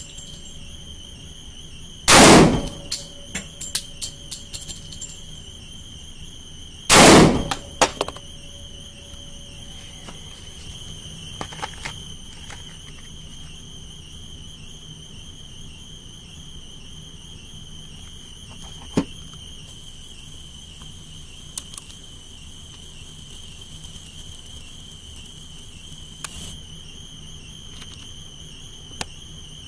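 Two shots from a Glock 30S .45 ACP pistol, about five seconds apart, each with a short echoing tail and followed by a few lighter clicks. After that, only a few faint clicks.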